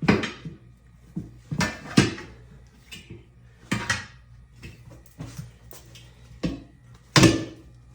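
Sharp metal clanks and knocks, about six at irregular intervals with fainter taps between them. This is the bar of a manual tire changer levering a tire bead onto a wheel rim, bite by bite.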